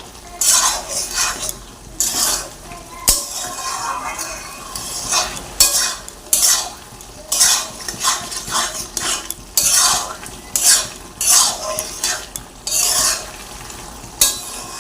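A spatula scraping and stirring through a pan of bottle gourd and shrimp curry in repeated strokes, roughly one a second, with a soft sizzle from the hot pan underneath.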